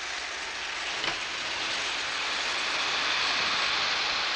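Lionel O-gauge model trains running around the layout: a steady whirring rattle of wheels on track that builds slightly, with a faint click about a second in.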